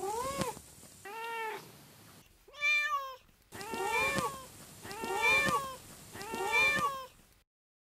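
Domestic cat meowing repeatedly, about six meows in all, each rising then falling in pitch. One higher-pitched meow comes in the middle, and the last three come about a second apart.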